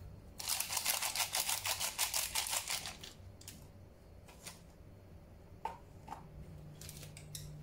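Crinkling and rattling of small plastic food packets and dried vegetable flakes being handled over a paper cup, a rapid crackle for about two and a half seconds, then a few light clicks and taps.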